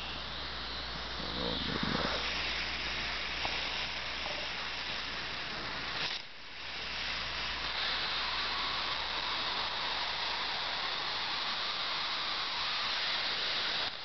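High-voltage arc discharge from the series-wired outputs of three TV flyback transformers, giving a steady, really crazy hiss. It breaks off briefly about six seconds in, then picks up again.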